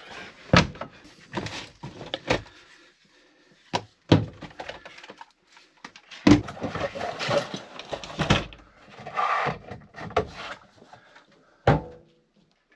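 Irregular wooden knocks and clatter with scraping and rustling between them, as gear is handled inside a small enclosed trailer.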